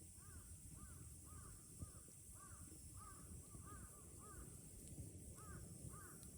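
A crow cawing faintly, a run of short arched caws about two a second, with a brief pause before two final caws near the end.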